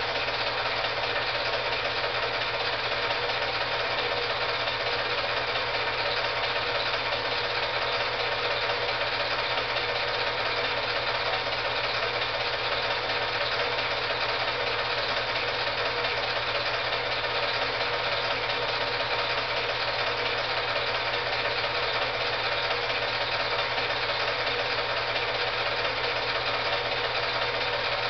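Film projector running: a steady, fast mechanical whirr with a low hum underneath, unchanging throughout.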